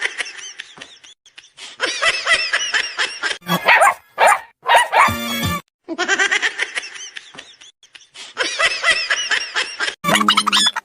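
Cartoon soundtrack of children's music with dubbed-in sound effects: quick, high, laughter-like animal calls. The same few-second stretch plays twice.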